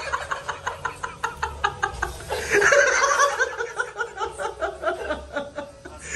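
Laughter in quick, even pulses, in two bouts: the first trails off about two seconds in, and a louder, higher one starts soon after and runs until near the end.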